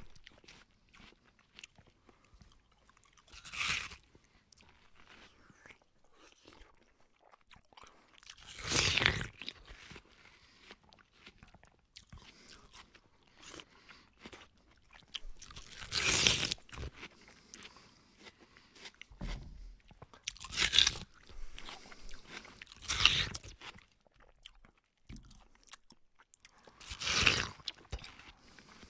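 Close-up bites and chewing of crisp, burnt battered onion rings, with a loud crunch every few seconds, about six in all, and quieter chewing between them.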